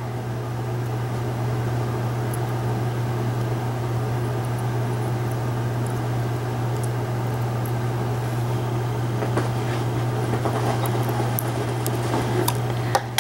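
A steady low hum with fan-like room noise, and a few faint clicks near the end as small cutters snip the coil's wire leads on a rebuildable dripping atomizer.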